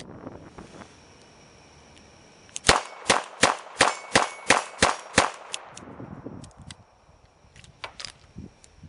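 Eight rapid shots from a .22 LR revolver, a Smith & Wesson 317 kit gun, fired about three a second, followed by a few faint clicks.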